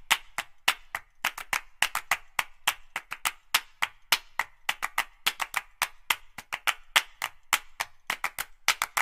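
Background music in a sparse break: only a rhythm of sharp clap-like percussion hits, about four or five a second, with no bass.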